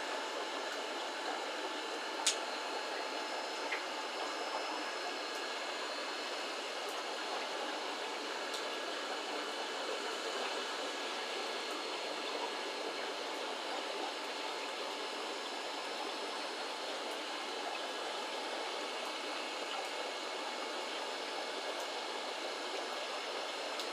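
Steady rushing water of a running aquarium's circulation, with one sharp click about two seconds in.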